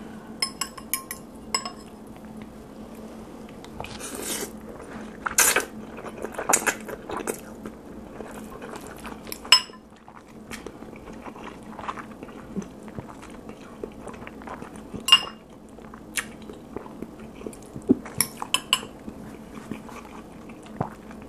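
A metal fork clinking and scraping against a glass bowl as spicy instant noodles are twirled up, with several sharp ringing clinks, between spells of close-miked chewing.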